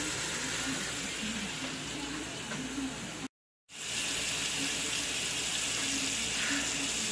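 Kitchen faucet running steadily onto boiled eggs in a strainer in the sink. The rush of water breaks off briefly about three seconds in, then a similar steady hiss resumes.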